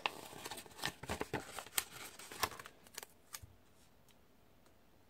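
Light clicks and rustles of paper sticker sheets being handled as stickers are peeled off and pressed onto planner pages, dying away after about three and a half seconds.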